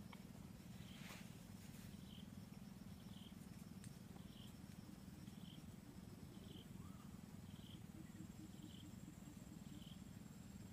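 Near silence: faint outdoor ambience with a steady low hum and a soft high chirp repeating about once a second.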